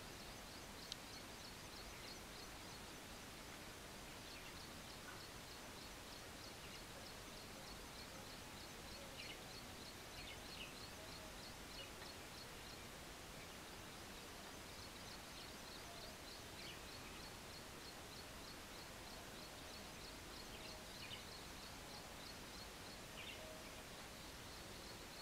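Faint outdoor ambience: a steady hiss with a rapid, high-pitched chirping repeated several times a second, pausing briefly about halfway, and a few scattered short calls.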